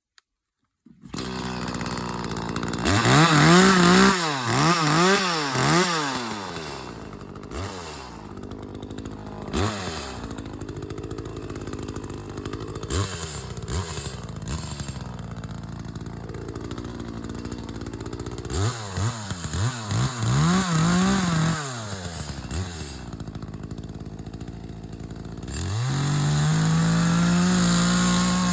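Chainsaw engine starting up about a second in, then revved up and down in repeated bursts with lower running between, and held at steady high revs near the end.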